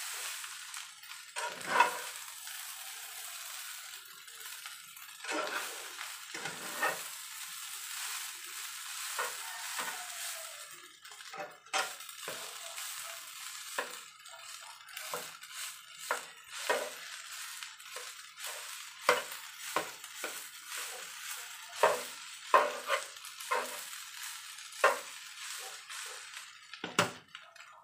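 Fried rice sizzling in a non-stick frying pan as a slotted spatula stirs and turns it, with irregular scrapes and taps of the spatula against the pan over a steady frying hiss.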